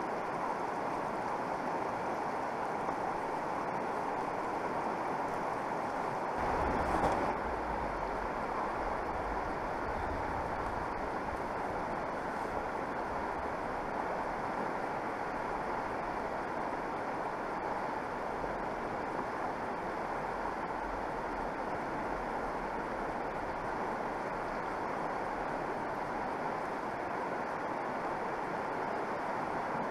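Fast-flowing mountain river running high, a steady even rush of water. There is a brief louder swell with a low rumble about seven seconds in.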